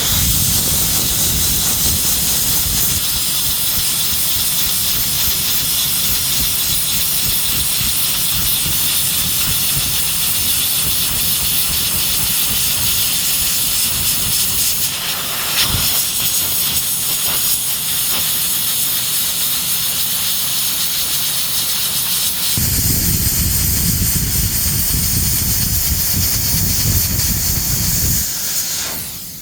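Hot-air plastic welding gun blowing a steady, loud hiss of hot air, with a low rumble underneath. There is a brief change around the middle, and the rumble grows stronger for a few seconds near the end before easing off.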